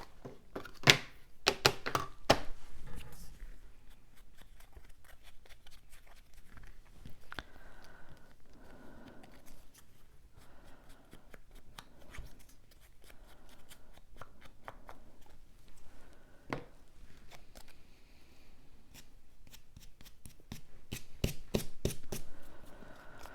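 Cut cardstock pieces being handled and inked by hand: soft paper rustling with sharp taps and clicks, a cluster of them near the start and another near the end.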